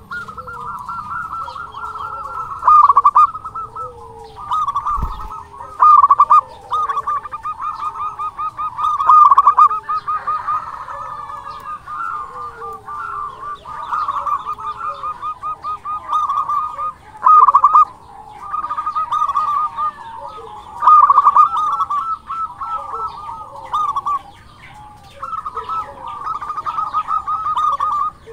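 Zebra dove (perkutut) cooing its song: long phrases of rapid trilled notes, with louder bursts every few seconds.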